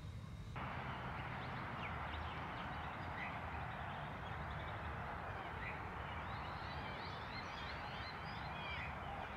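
Birds chirping over a steady outdoor hiss, the hiss starting about half a second in and the chirps growing busier toward the end.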